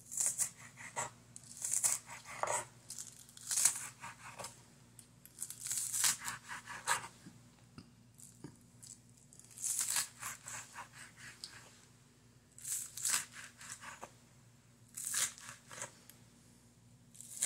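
Kitchen knife slicing green onions on a wooden cutting board: crisp cutting strokes in short groups every second or two, with pauses between.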